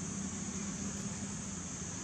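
Steady outdoor background noise: a low, even hum under a constant high hiss, with no distinct monkey calls.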